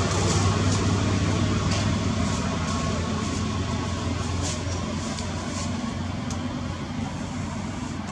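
Steady low engine hum of a motor vehicle running nearby, slowly fading, with a few faint light clicks.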